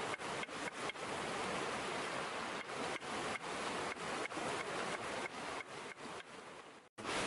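Cleaver chopping a red onion on a wooden cutting board, a series of short chops at an uneven pace, over the steady rush of a river. The sound drops out briefly near the end.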